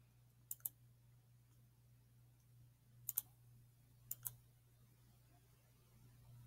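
Soft clicks of a computer pointer button in three quick pairs, about half a second, three seconds and four seconds in, over a faint steady hum.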